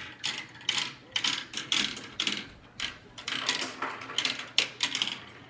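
Marbles rolling down a toy marble run, a string of irregular clicks and clacks as they clatter through the track.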